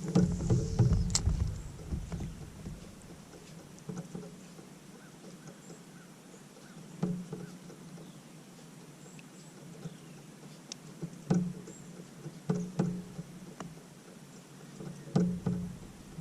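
Scattered light knocks and clicks from a fishing kayak and the gear aboard it, spaced a second or more apart over a quiet background.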